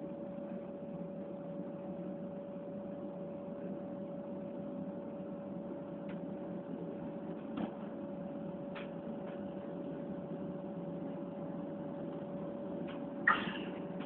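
Inside a moving S-Bahn train: steady running noise with a constant tone through it and a few faint clicks, then one short louder knock near the end.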